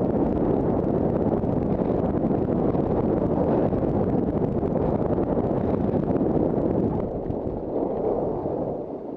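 Wind rushing over the microphone of a skier's action camera during a downhill run, mixed with skis running over packed snow; it fades near the end.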